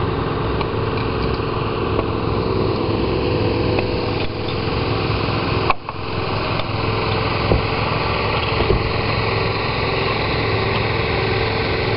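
A small engine running steadily at an even speed, with a short dip about six seconds in and a few faint clicks over it.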